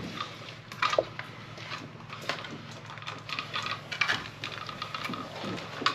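Light clicks and rustling from a blue plastic electrical box and Romex cable being handled, as the cable is pushed in through the box. A faint steady low hum runs underneath.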